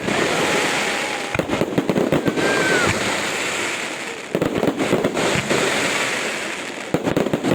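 Fireworks salute bursting overhead in three volleys of rapid bangs and crackling: about a second and a half in, just past four seconds, and near the end.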